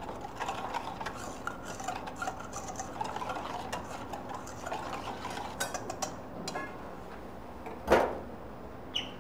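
Crème pâtissière mixture being transferred from a mixing bowl back into a saucepan: a kitchen utensil scrapes and clicks against the bowl, with one louder knock about eight seconds in.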